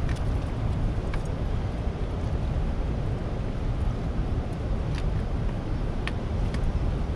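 Steady rushing of turbulent dam outflow water, heavy at the low end, with a few faint clicks.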